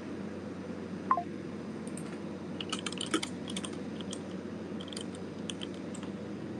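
Computer keyboard typing in short irregular runs of clicks, heard through a participant's microphone over a steady background hiss. A brief falling tone sounds about a second in.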